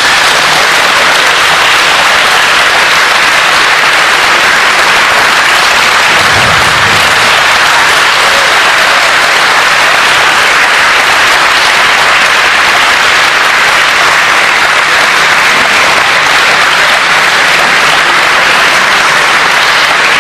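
Crowd applauding in a sports hall: a dense, steady clapping that starts just before and keeps on loudly without a break.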